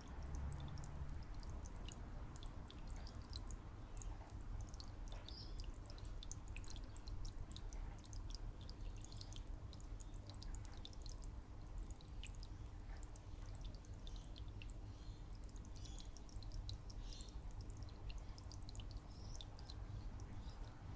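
Aquarium water trickling and dripping from the filter's glass lily-pipe outflow, a continuous scatter of small drips and bubbles, with a faint steady hum underneath.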